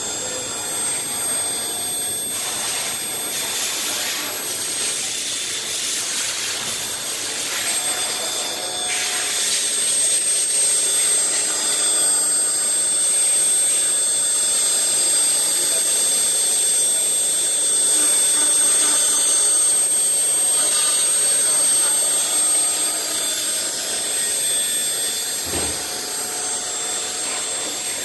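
ES951 high-speed electrospindle on a KUKA robot arm milling a wooden block: a steady high-pitched whine over the rasping noise of the cutter in the wood, which swells and eases as the tool moves along its path. A brief low thud comes near the end.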